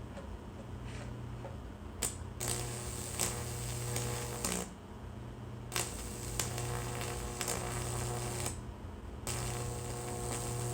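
A Lichtenberg wood-burning machine is switched on three times for two to three seconds each. Each run is a loud electrical buzz with crackling as high voltage arcs and burns through the wet, baking-soda-treated wood, and a low hum continues between the runs.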